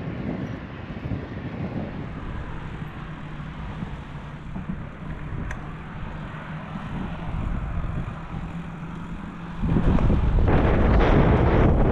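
Wind rushing over the action camera's microphone as a bicycle is ridden, a steady noise that jumps much louder near the end.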